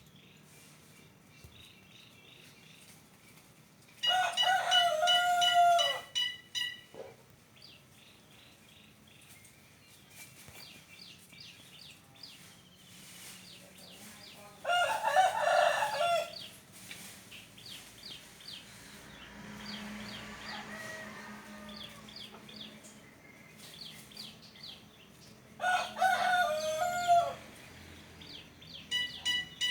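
A fowl crowing like a rooster: three long crows about ten seconds apart, each dropping in pitch at the end. Faint chirping lies between the crows, and a rapid run of short calls starts near the end.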